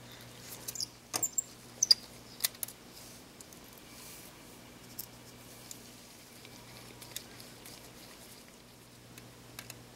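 Scattered small clicks and ticks of a precision screwdriver turning out the tiny screws of a digital camera's metal shield, metal tool on metal; a cluster of sharper clicks comes between one and two and a half seconds in, then only faint ticks. A faint steady hum lies underneath.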